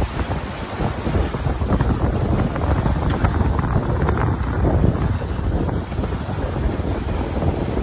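Wind buffeting the microphone over the rush of water and breaking waves around a sailboat under way in rough seas.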